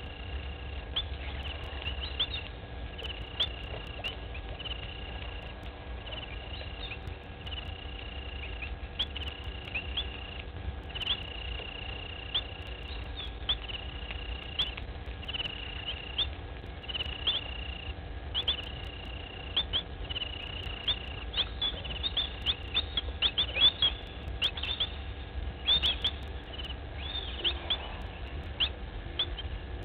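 A repeated high-pitched animal call, a short buzzy note about once a second, each ending in a quick rising chirp, over a faint steady hum. In the last several seconds, sharp clicks and rustles come thick and fast and are the loudest sounds.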